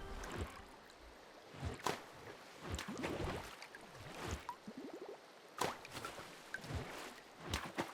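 Faint, irregular plops and gurgles of water, a few each second.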